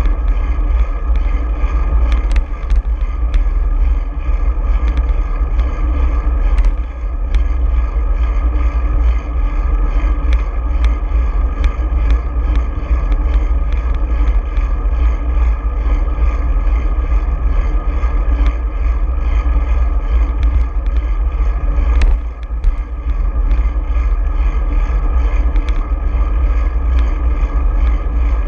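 Steady wind buffeting on an action camera's microphone while riding a bicycle, a heavy low rumble mixed with tyre and road noise, broken by scattered sharp clicks and knocks from bumps in the road.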